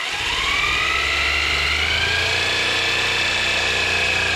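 A motor starts up: a whine rising in pitch over about the first second, then running steadily over a low rumble.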